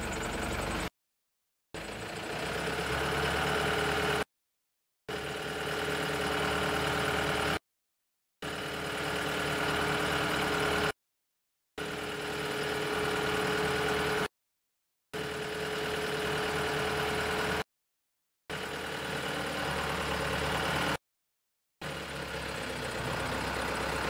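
Self-loading concrete mixer truck's diesel engine running steadily while its hydraulic loading bucket arm rises. The sound swells slightly in stretches of about two and a half seconds and drops to dead silence for just under a second between them, about every three seconds.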